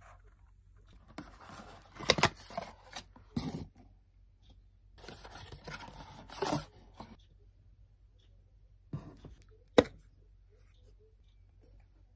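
Hands unpacking skincare products: paperboard boxes rustling and scraping as a jar is slid out, with a few sharp plastic clicks, the loudest near the end as a jar lid is opened.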